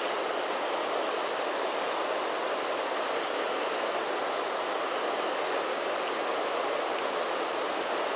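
Steady rush of river water pouring over a low weir and churning below it.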